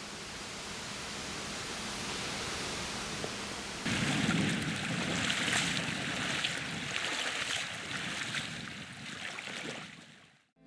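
Steady rush of flowing river water; about four seconds in it turns louder and hissier, with small ticks in it, then fades out near the end.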